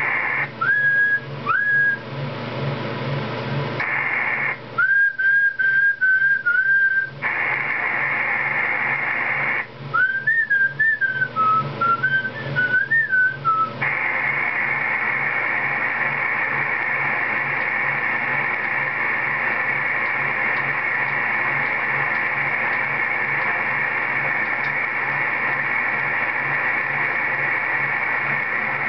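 CB radio receiver hissing with steady static, with a low hum under it. Three times in the first half, someone whistles short runs of notes over the channel, and the static drops away while the whistling station transmits. The steady hiss then returns for the rest.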